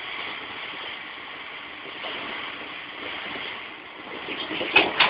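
Steady hiss of wind on the microphone over a crawler excavator working at a distance as it strains to lift a tipped dump truck, with a few sharp knocks near the end.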